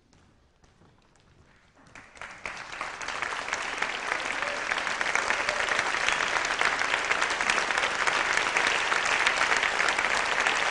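Audience applause. It starts with a few scattered claps about two seconds in and quickly swells into steady, full clapping.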